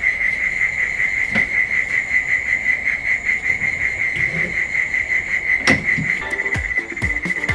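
A cricket chirring steadily with a rapid pulse. There is a knock about a second and a half in and a louder one near six seconds.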